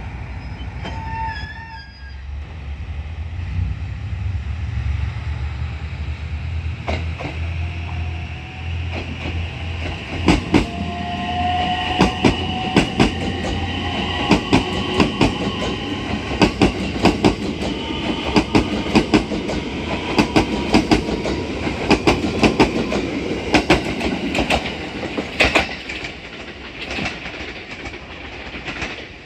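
Train passing, its wheels clicking over the rail joints in a steady repeating rhythm, with a low hum in the first part as it approaches.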